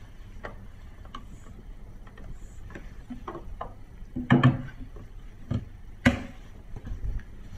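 Scattered clicks and knocks as LED dance floor panels are handled, fitted with connectors and pushed together edge to edge. The loudest are a cluster of knocks about four seconds in and a single sharp knock about six seconds in.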